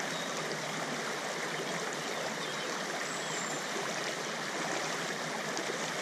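Steady rush of a small river's flowing water.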